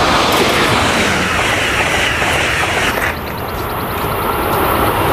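Amtrak Acela Express high-speed electric train passing at speed, a loud steady rush of train noise. About three seconds in, the sound changes abruptly as the footage cuts to another Acela approaching.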